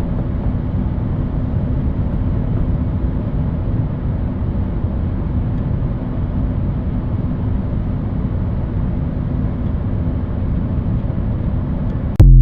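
Steady low rumbling noise with a faint hum, broken near the end by a sudden very loud burst.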